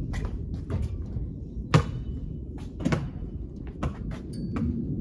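Basketball striking the hoop and bouncing on a concrete driveway: a series of sharp thuds, the loudest about two seconds in, the next ones roughly a second apart, over a steady low rumble.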